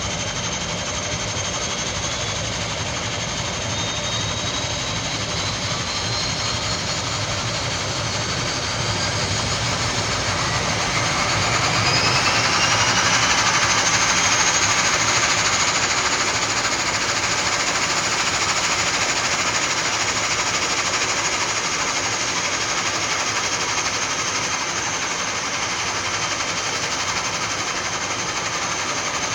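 Turboprop airliner engines starting up on the ground: a steady roar with a turbine whine that rises in pitch from about six to fourteen seconds in, then holds high as the engine spools up to idle.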